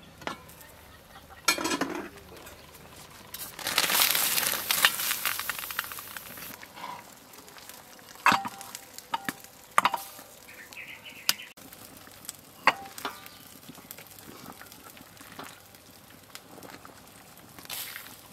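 Cooking sounds from an aluminium soup pot: a few seconds of crackling hiss from the hot pot, then several sharp metal clinks of the lid and ladle, and a short splash near the end as soup is ladled into a bowl.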